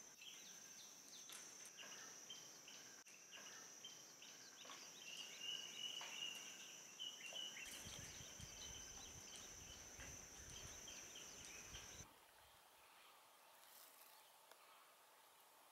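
Faint forest ambience: a steady high-pitched insect drone with scattered bird chirps and calls, joined by a low rumble about halfway in. The drone and rumble cut off abruptly about three-quarters through, leaving quieter outdoor ambience.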